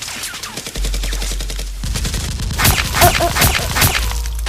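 Gunfire sound effects for a Nerf-blaster shootout. A rapid burst of shots comes first, then from about halfway in four or five louder single shots, each with a short ringing tail, over a steady low rumble.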